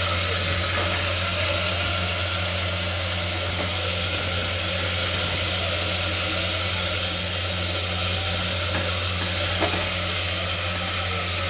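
Hot oil sizzling steadily in a pressure cooker as whole peeled potatoes and halved tomatoes fry in it with whole spices.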